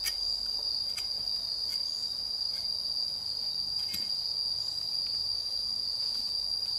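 Insects in the forest droning with one steady, unbroken high-pitched buzz, and a few faint clicks on top.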